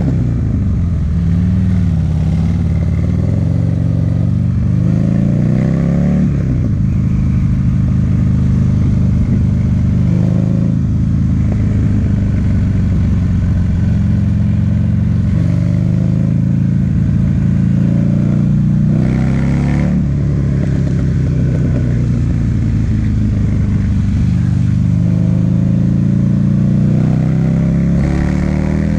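2009 Buell XB1200SS's air-cooled 1203 cc V-twin running loud through its aftermarket Jardine exhaust while riding. The engine note climbs under acceleration and drops back at gear changes, several times over.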